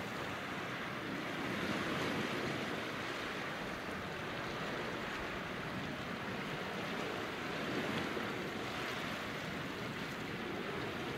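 Sea surf washing onto a rocky shore: a steady wash of water that swells gently about two seconds in and again near eight seconds.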